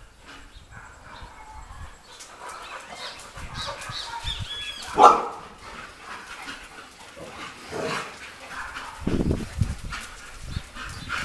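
Pit bulls barking now and then as a pack, with one loud bark about five seconds in.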